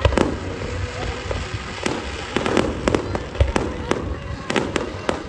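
Aerial fireworks display: shells bursting in a string of sharp bangs at irregular intervals, a dozen or so within a few seconds.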